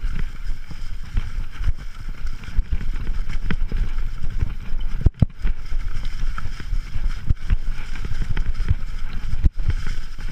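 Mountain bike ridden over a rough, leaf-covered dirt trail, picked up by a handlebar-mounted camera: a steady rattling rumble of the bike and its tyres over roots and dry leaves, with frequent knocks and wind on the microphone. The sound cuts out briefly twice, about five seconds in and near the end.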